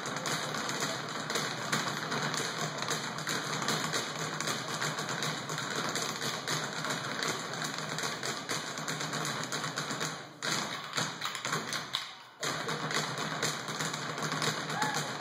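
A row of kneeling dancers tapping and slapping the stage floor with their hands in a fast, dense rhythm, with two short breaks near the end.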